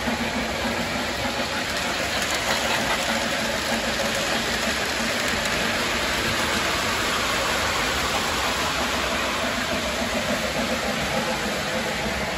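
Model train running on the layout's track: a steady rolling, whirring noise from the steam locomotive's motor and the hopper cars' wheels.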